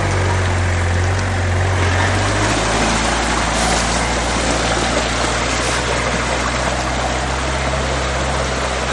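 Off-road 4x4's engine running close by, then pulling away through a flooded, muddy rut; the strong engine hum drops back about two and a half seconds in while water and mud churn under the tyres.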